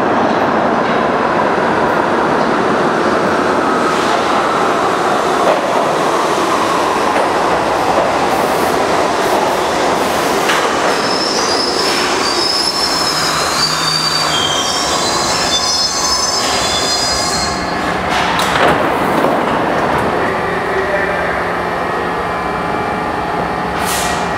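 R68 subway train pulling into the station and slowing to a stop: a steady rumble of steel wheels on rail, with high-pitched squealing from about ten seconds in that lasts several seconds. A few sharp knocks follow near the stop.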